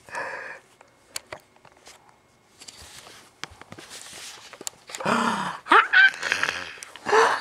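A seven-month-old baby's excited high-pitched squeals and shrieks: a short one at the start, then a loud run of them from about five seconds in, with a few faint clicks in the quiet between.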